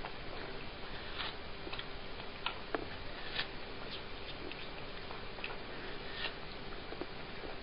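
Domestic cat biting and chewing a slice of watermelon: irregular small clicks and crunches every half second or so over a steady background hiss.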